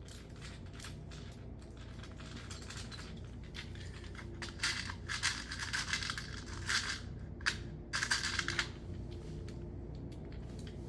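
Short, irregular scraping and clicking, bunched in the middle, of a screw being started by hand into a plastic anchor in a concrete wall.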